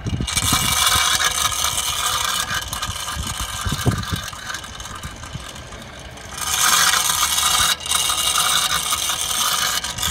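Grating, squealing scrape from a stone wedged between a car's brake disc and backplate as the wheel turns. The noise eases off for a couple of seconds near the middle, then comes back louder at about six seconds.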